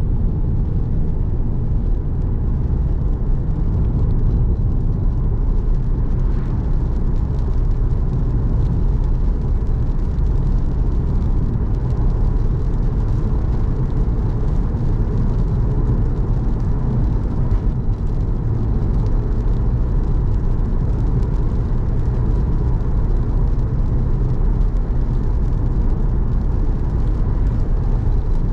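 A car driving steadily: continuous low road and engine rumble with no change in pace.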